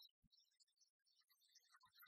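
Near silence, with only faint, scattered indistinct sound.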